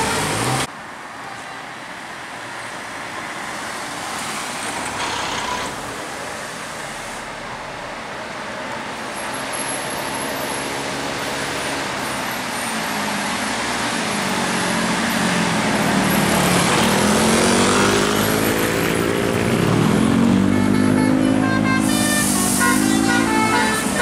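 Tour bus engine pulling up a steep bend and coming closer, its note falling and rising several times as it changes gear under load, over traffic noise. Near the end a basuri multi-tone bus horn starts a quick run of notes.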